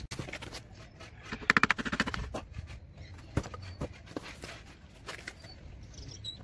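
A quick rattle of about ten sharp clicks about a second and a half in, then a few separate light knocks: engine parts being handled.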